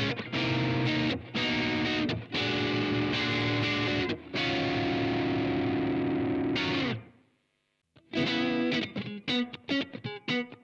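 Electric guitar played through a Blackstar AMPED 2 pedal amp on its EL84 tube response, with distortion: several held chords, the last one sliding down in pitch and cutting off about seven seconds in. After a short silence, fast, choppy staccato riffing starts.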